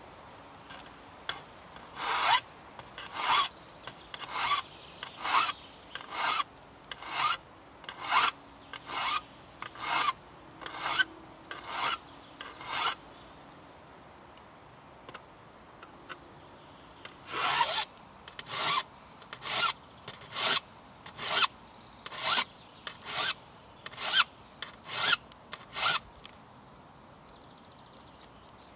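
Flat hand file rasping across the steel teeth of a two-man crosscut saw as each tooth is sharpened. The strokes come about one a second: a run of about a dozen, a pause of a few seconds, then about ten more.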